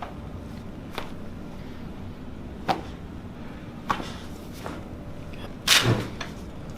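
Joints cracking under a chiropractic adjustment: about five short, sharp cracks spread out, the loudest and longest just before six seconds in.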